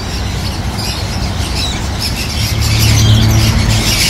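Many caged pet birds, small parrots such as conures, cockatiels and lovebirds, squawking and chirping together, getting louder about two and a half seconds in, over a low steady hum.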